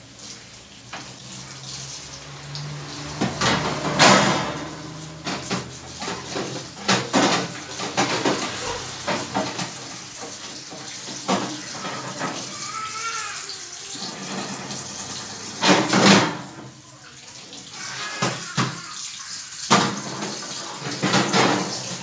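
Tap water running and splashing into a stainless steel sink as a wire refrigerator shelf is scrubbed and rinsed under it. The metal rack clanks against the sink several times, loudest about 4 seconds in and again about 16 seconds in.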